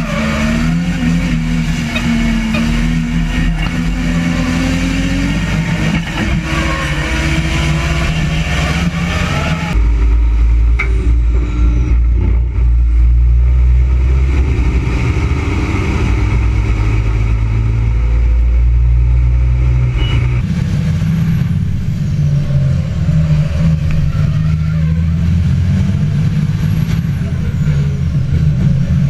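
Racing trucks' diesel engines running on the circuit, in several clips cut together. A heavier, deeper engine rumble takes over about ten seconds in, then gives way again about twenty seconds in.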